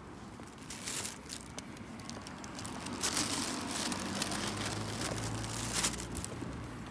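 Footsteps on a concrete footpath with rustling and scuffing, swelling into a rush of noise from about three to six seconds in, with a low hum underneath near the end.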